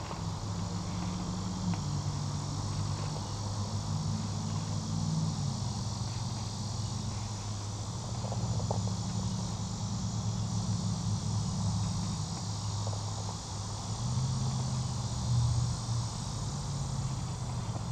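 Steady high-pitched insect chorus, with a low rumble underneath that shifts in pitch now and then.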